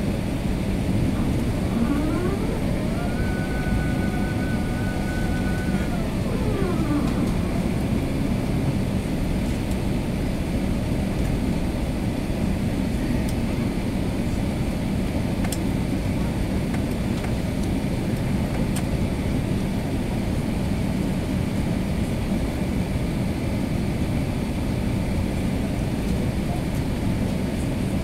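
Steady low rumble inside the cabin of an Airbus A380 taxiing, its engines turning at low power. About two seconds in, a whine rises, holds for a few seconds and falls away.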